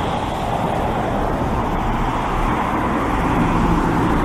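Steady road traffic: cars driving past on a street, with a low engine hum joining in the second half.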